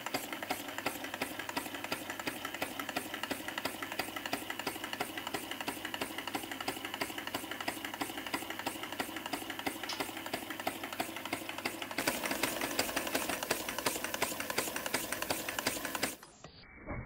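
3D-printed single-cylinder four-stroke compressed-air engine running fast, exhausting in rapid, regular puffs of air, one for every two turns of the crank as its spring-loaded ball-bearing valves feed air every other stroke. It gets louder about twelve seconds in and cuts off abruptly near the end.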